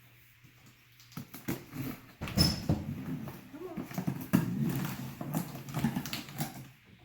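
Large cardboard box being opened by hand: tape tearing, flaps and packaging rustling and scraping, with irregular knocks and clicks.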